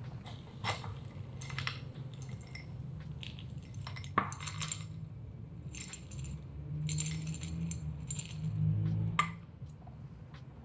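A metal scoop digging into a jar of dry fertiliser pellets, with scattered clinks and rattles of pellets against the scoop and jar. The sharpest click comes about four seconds in and another near the end.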